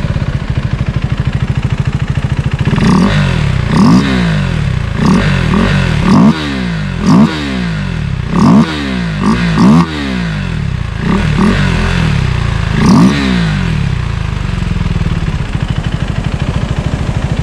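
KTM Duke 390's single-cylinder engine idling, then revved in about a dozen quick throttle blips, each rising and falling in pitch, before settling back to idle near the end. The air filter box lid has been swapped for a 3D-printed cover full of holes to let out more intake sound.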